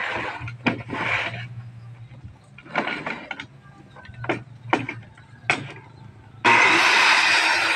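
A few sharp knocks and clatters as the plywood sheets and the saw are handled, then, about six and a half seconds in, a handheld electric circular saw cuts in suddenly, loud and steady, sawing through plywood.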